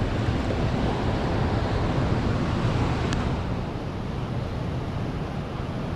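Steady rushing of a waterfall and creek water, a continuous roar of falling water with a faint tick about three seconds in.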